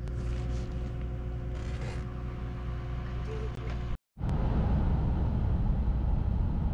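A steady low rumble with a faint droning hum. After a brief dropout about four seconds in, louder road noise follows: a car driving at speed, heard from inside the cabin.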